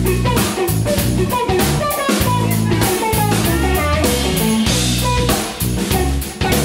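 Live instrumental band jam: guitar playing over a full drum kit and a moving bass line, with the lead line sliding in pitch about three seconds in.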